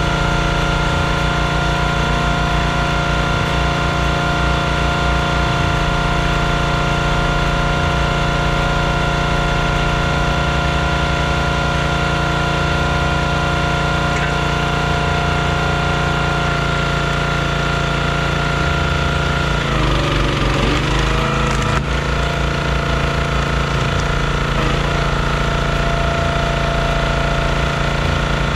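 Small gas engine of a hydraulic log splitter running steadily. About 20 seconds in it bogs down in pitch for a second or so as it takes the load of the ram pushing through a round, with a sharp crack of splitting wood near the end of that, then settles back to its steady running speed.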